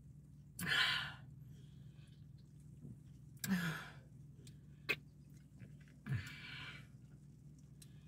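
A woman chugging canned soda breathes out hard three times between swallows, each breath short and breathy, with a small click about five seconds in. A low steady hum sits underneath.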